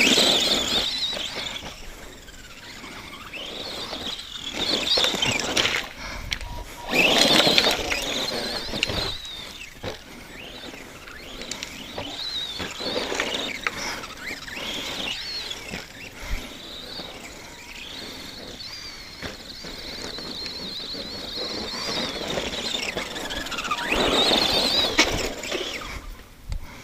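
Arrma Granite RC monster truck driving: its electric motor and gears whine high, rising and falling with each burst of throttle. The whine is loudest about seven seconds in and again near the end.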